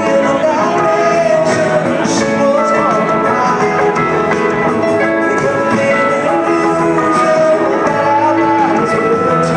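Live rock band playing: electric and acoustic guitars, bass and drums in a steady, continuous groove, with gliding guitar notes over the chords, heard through the hall's PA from the audience.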